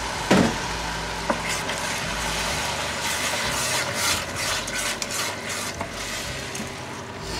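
Wooden spoon stirring a thick, chunky tomato mixture in a stainless steel stockpot, with repeated wet scraping strokes, after a light knock at the start.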